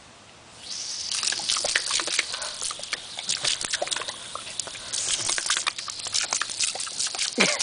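Garden hose spraying with a steady hiss that starts about a second in, while an Australian Cattle Dog bites and chomps at the stream, his jaws snapping and water splashing in quick, irregular clicks.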